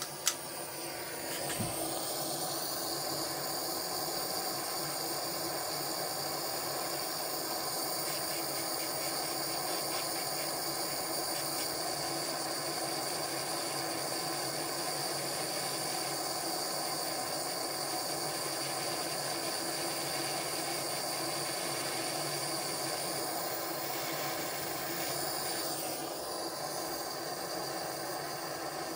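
Gas soldering torch burning with a steady hiss, heating silver solder paste on a watch-case lug joint; it builds up over the first couple of seconds after a small click.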